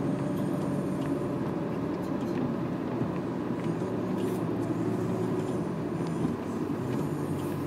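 Car engine and tyre noise heard from inside the moving car's cabin: a steady low drone over road rumble, the engine note shifting in pitch a few times.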